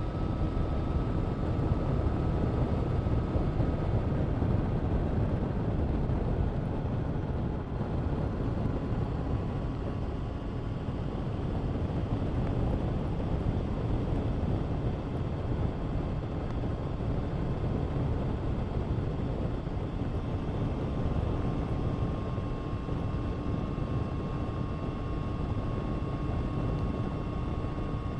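Honda CBR1000RR-R Fireblade's inline-four with an Akrapovic exhaust, running at a steady speed under a broad rushing noise. Its pitch eases slightly a few seconds in and creeps back up near the end.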